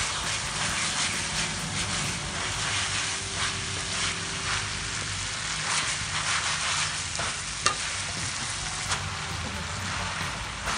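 Morning glory (water spinach) sizzling in a hot metal wok with fermented soybeans and pork, stirred and turned with a wooden spatula that scrapes the pan in repeated strokes. One sharp knock about two-thirds of the way through.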